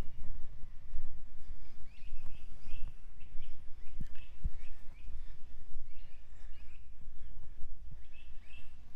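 Birds chirping in short, repeated calls over a low rumbling noise on the microphone, with a couple of soft thumps about halfway through.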